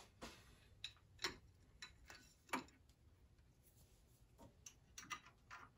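Faint, irregular metal clicks and taps, about a dozen, from a steel bolt and combination wrench being fitted and snugged up to bolt a home-made spindle lock onto a small lathe's headstock. The clicks come closer together near the end.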